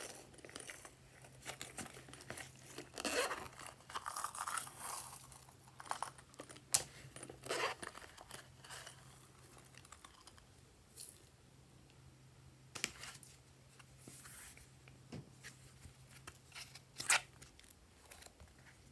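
Hands handling plastic slime containers and craft packaging: irregular crinkling and scraping rustles with a few sharp clicks.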